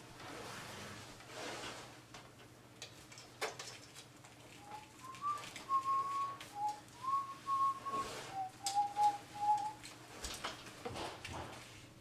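A person whistling a short tune of about ten notes, starting about four seconds in and lasting some five seconds, with scattered clicks and knocks from handling a computer case and its parts.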